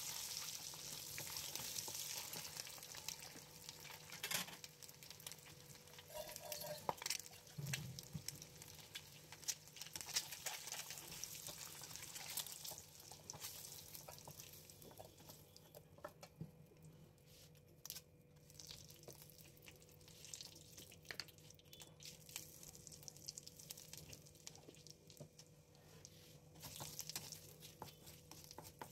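Hot oil sizzling in a kadai as turmeric-coated boiled eggs fry, with scattered clicks of a spatula against the pan. The sizzle fades about halfway through as the eggs are lifted out, then picks up again near the end when a bay leaf goes into the oil.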